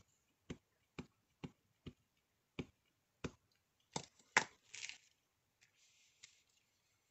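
A black StazOn ink pad tapped repeatedly against a clear rubber stamp on an acrylic block to re-ink it: seven light taps about twice a second. Then come two louder knocks and a short rustle of paper sliding across the work mat.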